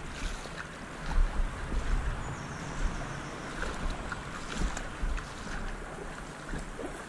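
Water splashing and sloshing in a shallow gravel-bottomed river as someone wades through it, with wind rumbling on the microphone.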